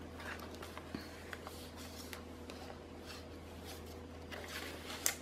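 Faint rustling and light ticks of thick handmade journal pages and card inserts being turned and handled, over a steady low hum.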